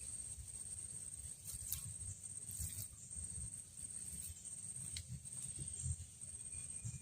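Insects trilling in a steady high-pitched pulsing drone, over low rumbling and a few sharp clicks.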